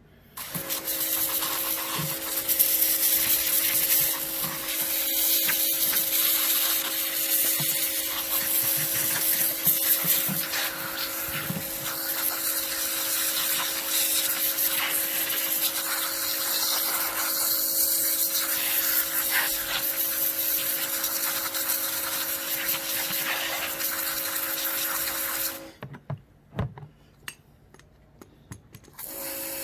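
Electric pressure washer running with a steady motor hum under a loud hiss of water spray, rinsing degreaser off a brake caliper. It cuts off about 26 seconds in and starts again near the end.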